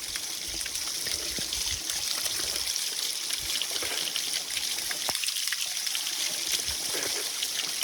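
Waterfall water trickling and splashing close by, a steady hiss, with hands scooping and splashing the cold water to wash a face during the first few seconds.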